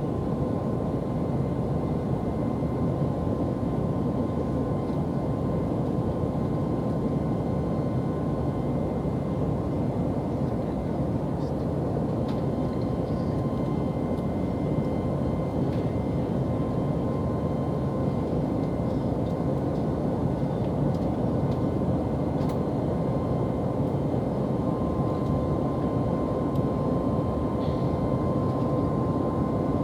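Airliner cabin noise in flight after takeoff: a steady, unchanging roar of engines and airflow with a thin steady tone over it.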